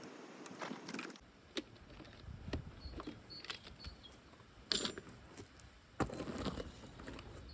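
Scattered light clicks, clinks and knocks of hand work on a traction battery pack as its parts are opened up and handled, with a sharper knock about five seconds in.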